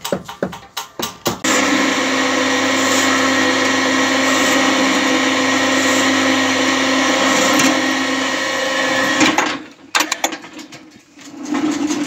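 Small electric rope hoist motor running with a steady hum for about eight seconds, then cutting off suddenly. A quick run of knocks comes before it starts.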